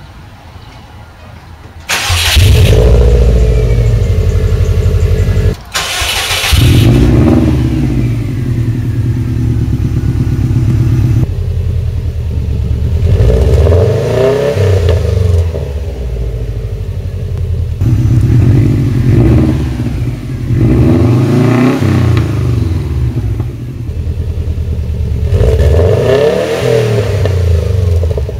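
Subaru WRX turbocharged flat-four engine through an aftermarket catback exhaust. It starts about two seconds in and settles into a steady idle. Later it is revved several times, each rev rising and falling, first at low revs and then at higher revs.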